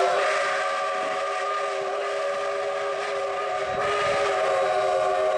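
Steam locomotive No. 3025's chime whistle sounding one long, steady blast, several notes at once in a chord.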